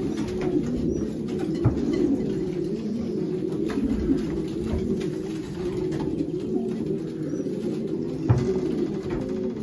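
Racing pigeon cocks cooing continuously in their nest boxes, many calls overlapping, stirred up by being shown their hens. A couple of short thumps sound among the coos.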